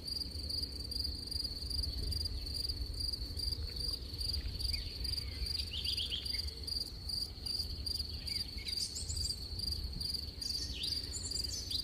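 Crickets chirring in a steady, fast-pulsing high trill, with short downward-sliding chirps breaking in now and then and a steady low rumble beneath.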